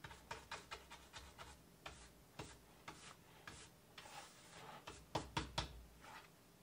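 Hand brush sweeping sawdust off a plywood cabinet door into a plastic dustpan: faint quick brushing strokes and light ticks, with a few louder taps a little after five seconds in.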